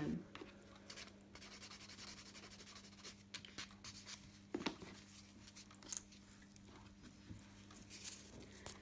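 A soft nail buffer rubbing over the cured gel top coat of a nail tip, taking the gloss off: faint, quick scratchy strokes with a few light clicks, over a low steady hum.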